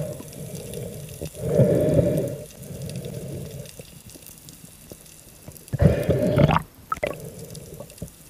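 Muffled underwater noise picked up through a diving camera's housing: two bursts of deep rushing, gurgling sound, one about one and a half seconds in and one around six seconds, over a low steady underwater hum.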